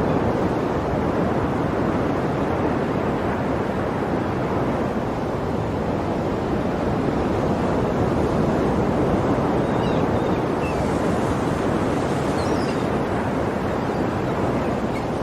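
Sea surf washing continuously, a steady, even rush of waves with no single breaker standing out.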